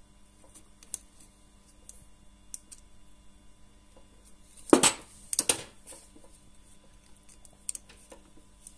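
Small screwdriver turning a screw into a plastic wire terminal block: faint light clicks and scrapes, with two louder brief rustling clatters of handling a little over halfway through.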